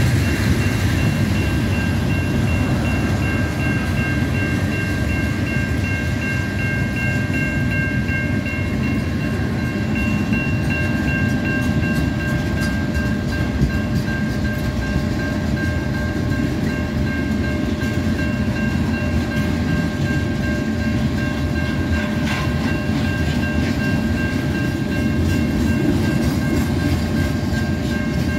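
CN freight train rolling past, a steady low rumble with several thin, steady high-pitched tones held above it and a few faint clicks.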